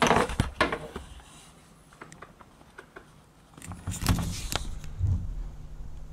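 Clicking, knocking and rattling of the central-locking actuator and its linkage rod being worked into place inside an Opel Vectra B door. The sounds come in two bursts, at the start and again about four to five seconds in, with a low steady hum from about five seconds on.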